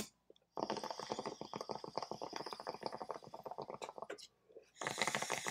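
Water bubbling in a glass bong as smoke is drawn through it. A lighter clicks at the start, then comes about three and a half seconds of rapid gurgling. After a short pause, a second hissing burst of bubbling starts near the end.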